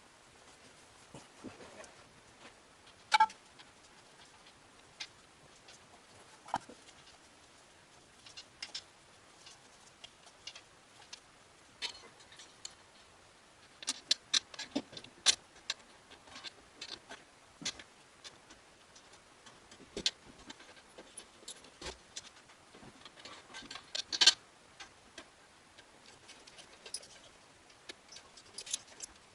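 Scattered sharp clicks and clinks of hand tools and metal parts being worked on an engine during assembly, with short quick runs of clicks about halfway through and again near the end.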